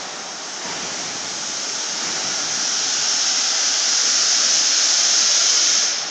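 Welding turning roll running: a steel pipe turning on motor-driven rollers gives a steady rushing hiss that grows louder and then drops off suddenly near the end.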